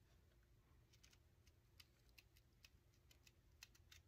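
Near silence, broken by a few faint, scattered snips of scissors trimming the corners of a kraft cardstock tag.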